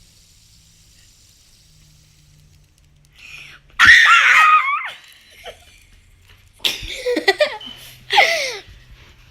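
A child laughing loudly in three high-pitched bursts: a long one about four seconds in, then two shorter ones near seven and eight seconds.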